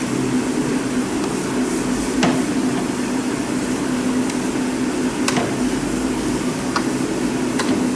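Sharp plastic clicks and knocks, about five of them and the second-most-recent loudest near two seconds in, as the air filter housing's plastic cover and its spring clips are worked loose by hand, over a steady low background hum.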